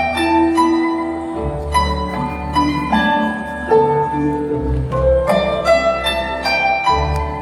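Music led by a plucked string instrument, picking out a melody of short ringing notes a fraction of a second apart, over a sustained low bass.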